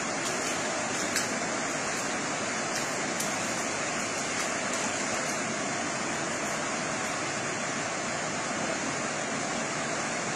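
Steady rushing of water with an even hiss that does not change, and a few faint clicks.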